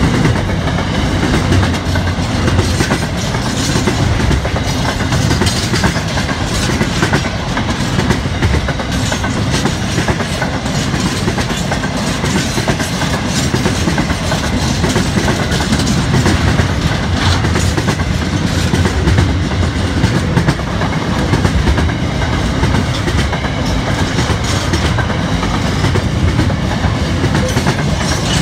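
Container wagons of an intermodal freight train rolling past: a steady noise of steel wheels running on the rails, with a continual run of wheel clicks over the rail joints.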